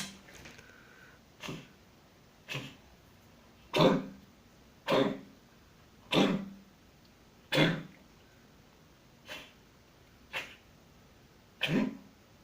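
Domestic cat coughing: a run of about nine short, hacking coughs, roughly one a second, some fainter than others, the last a quick double cough.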